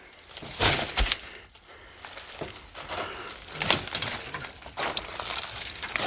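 Footsteps crunching through dry leaf litter and twigs: a few irregular steps with rustling between them.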